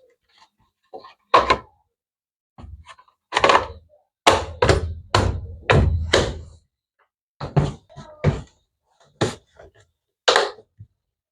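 An irregular series of about a dozen knocks and thuds, several with a deep low end.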